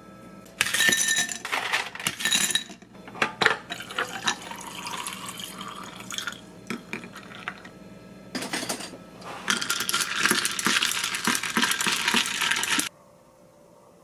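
Ice cubes clinking and rattling in a tall glass as liquid is poured over them for an iced coffee, with a dense stretch of clinking in the glass in the second half that stops abruptly.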